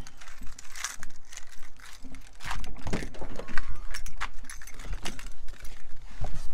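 Clicks, knocks and rustling of a pickup truck's driver door being opened and someone climbing into the cab, with a light jangle of keys.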